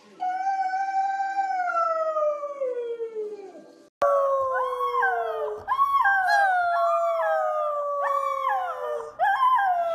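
An adult husky gives one long howl that slides slowly down in pitch and fades out. After a cut about four seconds in, a husky puppy with its head thrown back howls in a run of long, wavering howls that step up and down in pitch.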